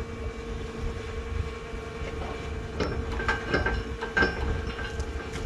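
Steady hum of the running seeding rig, a tractor and Bourgault air cart, under a low wind rumble on the microphone. A few sharp metallic clanks and taps come from about two seconds in as the cart's hardware is handled.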